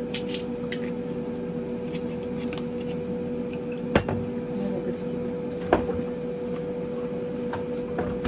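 Bottles and a glass being handled on a kitchen counter during cocktail mixing: small clicks and two sharp knocks, about four and six seconds in. Under them runs a steady hum.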